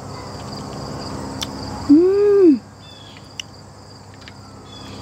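A woman's closed-mouth 'mmm' of enjoyment while eating, about two seconds in, its pitch rising and then falling. Crickets chirp steadily in the background.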